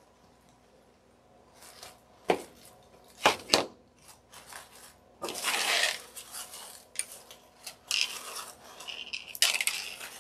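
Crinkled paper coffee filters on a foam-board angel wing rustling and crunching as the wing is handled and turned, after a few sharp knocks and clicks about two to four seconds in.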